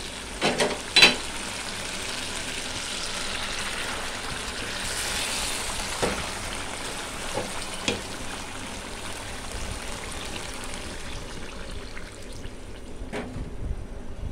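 Chicken curry with mung dal and potatoes sizzling in an aluminium pot as it is stirred with a spatula, making a steady hiss. Several short knocks of the spatula against the pot cut through it, the sharpest about a second in.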